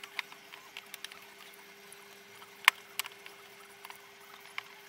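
Small sharp clicks and taps of plastic push-in trim clips being pressed into a motorcycle's tail fairing with a screwdriver, the loudest click a little before three seconds in.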